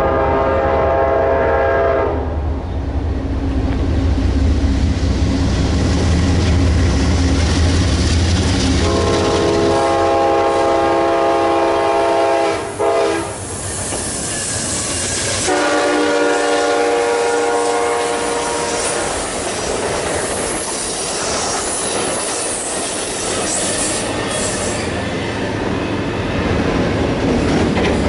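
A freight train passing, with a diesel locomotive's multi-note air horn blowing three blasts: a short one at the start, then two long ones about nine and fifteen seconds in. Heavy engine rumble under the first third gives way to high-pitched wheel noise and squeal on the rails.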